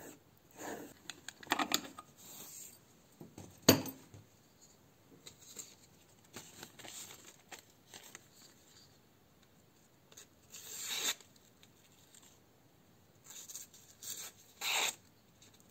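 Grafting knife blade drawn in short strokes along a leather belt strop charged with GOI polishing paste, a sharp click about four seconds in, then the blade slicing a paper receipt in a few crisp cuts as a test of the edge's sharpness.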